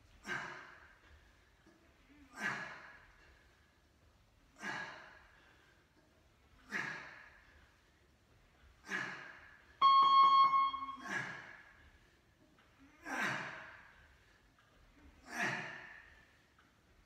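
A man breathing out hard with each crunch: a sharp exhale about every two seconds, eight in a row. About ten seconds in, a loud electronic beep is held for about a second.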